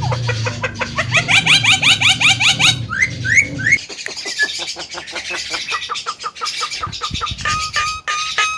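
Javan myna (jalak kebo) singing vigorously: a fast run of repeated rising chirps, a few upward-sweeping whistles about three seconds in, then a row of short, even whistled notes near the end, over a low hum in the first half.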